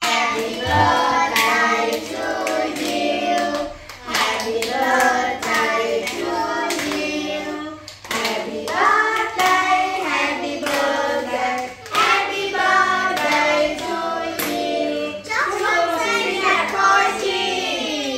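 A group of voices, children among them, singing the birthday song together in four phrases while clapping along.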